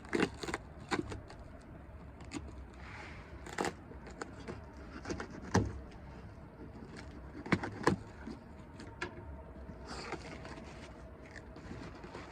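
A heavy cardboard box of chipper knives being opened by hand: irregular crackles and sharp knocks of cardboard and tape being torn and handled.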